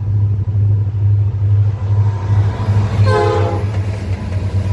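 Norfolk Southern diesel freight locomotives passing close with a steady low engine rumble, and a short blast of the locomotive's air horn about three seconds in.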